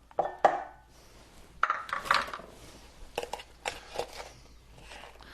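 Kitchen utensils knocking and scraping against a mixing bowl while flour is measured in: several sharp clinks and taps, with a short stretch of scraping about two seconds in.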